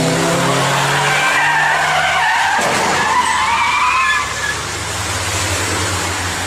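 Car engines running on a wet race track, then tyres squealing in a skid for about three seconds as a car loses control, with the squeal ending about four seconds in. A steady rushing noise and a low engine hum follow.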